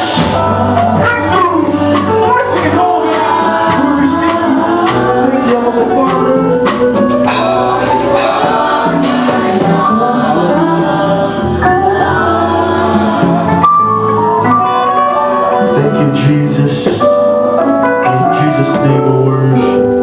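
Live gospel music: singing over instrumental accompaniment with a steady drum beat.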